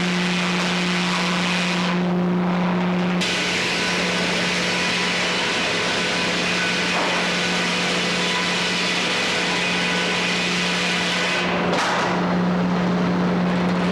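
Frick 00 sawmill's circular blade running and sawing through a log over a steady drone of the mill's power unit. The high cutting hiss drops away briefly about two seconds in and again near the end, while the drone carries on.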